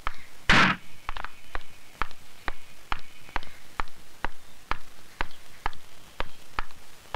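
Hard-soled boots striding at an even marching pace, about two steps a second, on a hard floor. A louder, longer thump comes about half a second in.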